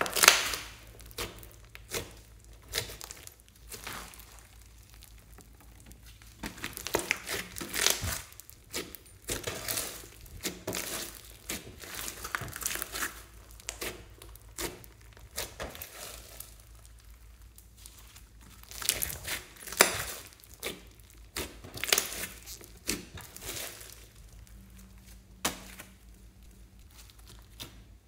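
Hands squeezing and kneading floam, slime packed with tiny foam beads, which gives off crunchy crackling in irregular bursts with short quiet gaps between.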